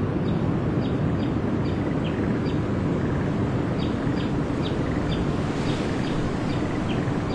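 A small bird chirping over and over in short, high notes above a steady low outdoor rumble.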